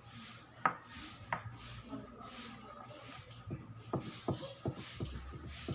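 Sticky glue-and-detergent slime being stirred with a wooden barbecue stick in a bowl: a couple of separate clicks, then a quicker run of irregular taps and clicks from about three and a half seconds in, over a faint steady whine.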